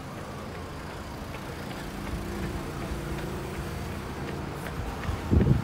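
City street traffic: a steady low rumble, with a motor vehicle's engine audible close by for a couple of seconds in the middle. A few heavy low thumps come near the end.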